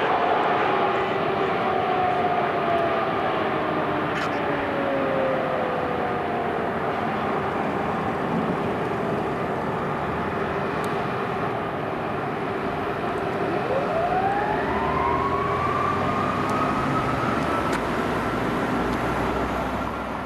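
Fire truck siren on a code 3 response, falling slowly in pitch as it winds down, then about thirteen seconds in winding back up to a high steady wail, over traffic and engine noise.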